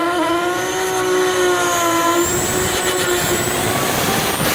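Racing car engine held at high revs, a steady buzzing note with a faint high whine slowly rising above it.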